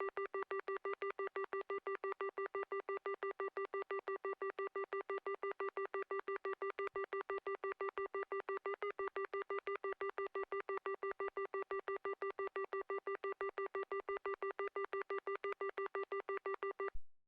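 Landline telephone busy tone: a single low-pitched tone beeping rapidly on and off at an even rate, several beeps a second, until it cuts off near the end.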